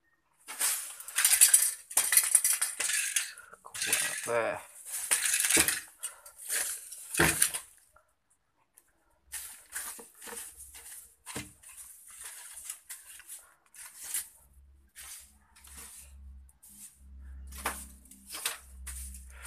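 Household cleaning noise: a run of loud scraping and brushing strokes, then after a short pause about eight seconds in, lighter scattered clicks, knocks and clinks of things being moved.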